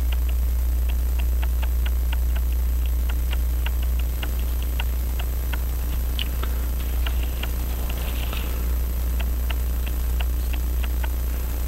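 Steady low hum under a light, even ticking about three times a second, with a few small metallic clicks from handling the brass clock movement.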